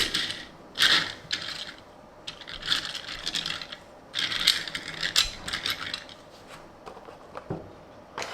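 Tomica die-cast toy car and its packaging being handled: light clicks, small knocks and scraping rustles in several short bouts, about a second in, around three seconds in and again around four to five seconds in.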